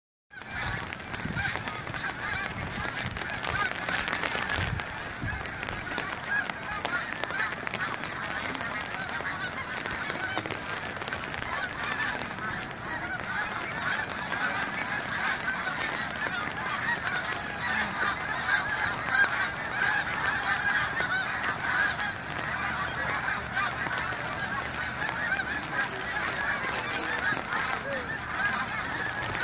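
A large flock of geese flying overhead, many birds honking at once in a dense, continuous chorus.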